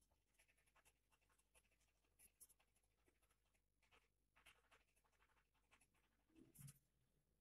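Near silence with faint scattered clicks and scratches, and a brief low sound about six and a half seconds in.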